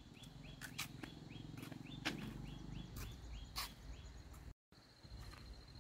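Faint outdoor ambience: a short rising chirp repeating about three times a second, with a few sharp clicks or knocks over a low steady hum. A brief dropout just after four and a half seconds, then a steady high buzzing trill.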